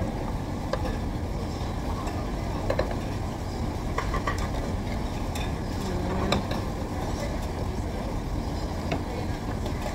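Steady low hum of a busy restaurant's background noise, with scattered light clinks of dishes and utensils.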